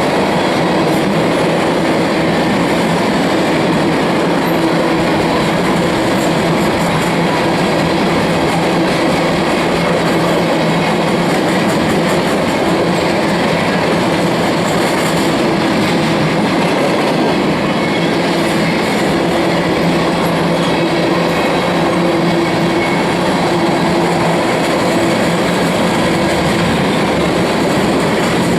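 A freight train of empty ethanol tank cars rolling past, with a steady, loud noise of steel wheels on the rails.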